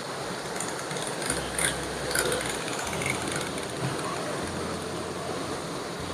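Steady rush of a shallow stream running over rocks, with a few faint ticks in the first couple of seconds.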